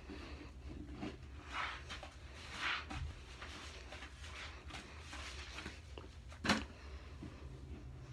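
Scrub sponge rubbing and swishing against a porcelain toilet bowl in soapy water, a few soft scrubbing strokes over a low steady hum, with one sharp click about six and a half seconds in.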